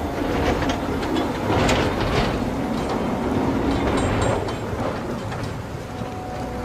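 Darjeeling Himalayan Railway toy train running on its narrow-gauge track, wheels clattering over the rails with a few brief squeals. Music comes in near the end.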